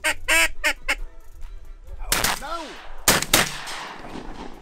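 A duck call blown in a quick series of short notes, then shotgun shots at a flock of flying teal: one about two seconds in and two close together about a second later.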